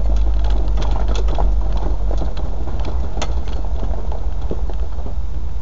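Land Rover on a four-wheel-drive run: a steady low engine rumble with a scatter of sharp clicks and knocks, most frequent in the first couple of seconds.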